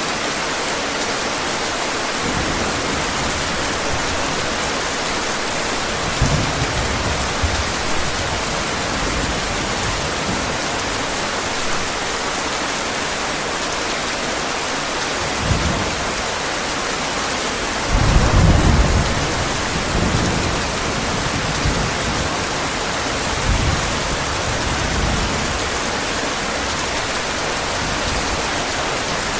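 Heavy rain falling steadily, with several low rumbles of thunder; the strongest rumble comes about two-thirds of the way through.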